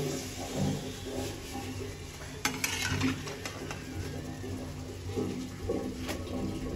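Puri frying in hot oil in an iron kadhai, the oil sizzling, while a steel spatula scrapes against the pan and lifts the puri out. Sharp metal clicks sound twice in quick succession about two and a half seconds in and once more about six seconds in.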